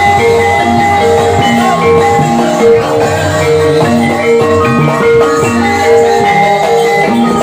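Gamelan music accompanying an ebeg trance dance: struck metal keys and gong-chimes playing sustained notes that repeat in a steady, interlocking cycle.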